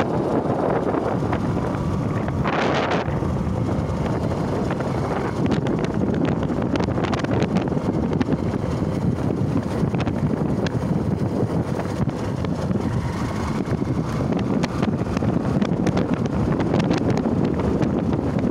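Steady wind noise buffeting the microphone of a phone on a moving motorcycle, with the motorcycle's running and road noise underneath.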